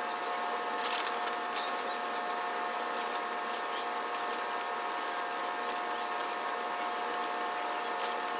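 Cut green vinyl film being peeled by hand from its printed sheet, with a few sharp crackles about a second in and near the end. Under it runs a steady hum of several fixed tones, with faint high squeaks.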